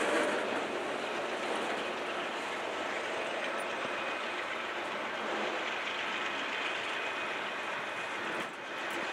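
Freight train of flatcars loaded with steel pipe rolling past close by: a steady rolling noise of steel wheels on rail, with a brief drop in level near the end.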